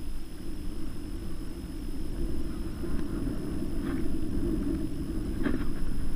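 Wind rumbling on the microphone of a kayak on the water, with a few light knocks.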